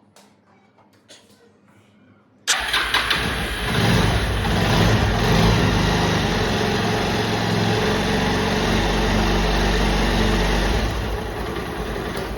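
A Bajaj Pulsar 220's single-cylinder engine starts suddenly about two and a half seconds in. It picks up slightly about a second later, then runs steadily until it stops near the end. The engine has a ticking timing chain and is running with the chain tensioner's adjuster bolt opened for a check.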